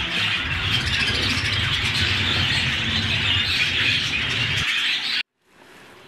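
A flock of exhibition budgerigars chattering, with a dense mass of chirps and warbles that cuts off abruptly about five seconds in.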